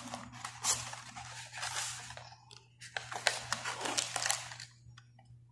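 Cardboard box flaps and inserts rustling and scraping, with small accessory packets crinkling and light clicks as hands pull parts out of a phone's packaging.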